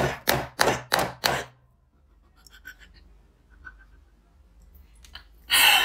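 Hands rapping on the bottom of an upside-down plate to release a stuck dessert from the mould: five sharp hits, about three a second. After them come faint small clicks and a brief noisy burst near the end.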